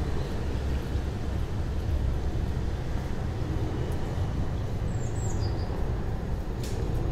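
Steady low rumble of a vehicle in city traffic, with a brief high falling chirp about five seconds in and a small click shortly after.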